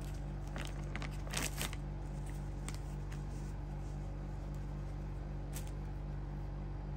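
A steady low hum with a few faint clicks and rustles in the first two seconds and one more near the end.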